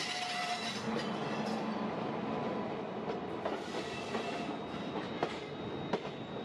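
Two trains passing each other on adjacent tracks: the steady rush and wheel clatter of an oncoming passenger train's electric locomotive and coaches going by close alongside the moving train, with a few sharp clicks of wheels over rail joints toward the end.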